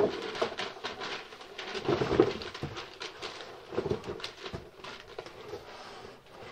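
A large cardboard box being handled and moved about, with a run of irregular knocks and scrapes, and paper instruction sheets rustling.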